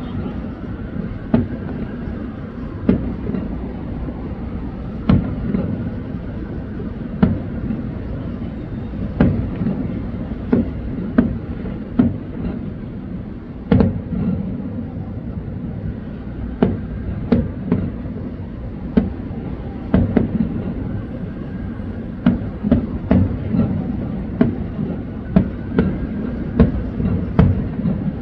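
A fireworks display: an uneven string of sharp bangs from shells bursting, over a steady low rumble.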